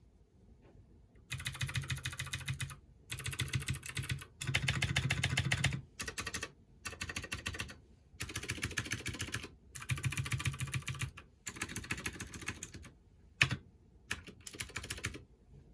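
Keychron K6 mechanical keyboard with clicky Gateron Blue switches being typed on in quick runs of keystrokes, each run a second or two long, with short pauses between. One single keystroke near the end is sharper and louder than the rest.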